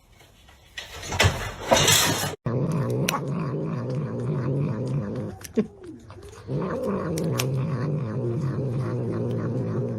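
A brief noisy rush, then a domestic cat's long, low, wavering yowl that breaks off once about halfway through and starts again.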